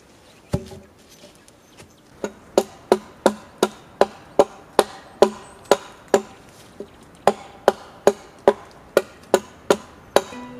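Hand axe chopping a wooden pole in quick, even blows, about two and a half a second, each a sharp, ringing wooden knock, with a short pause midway. A single heavy thump comes about half a second in.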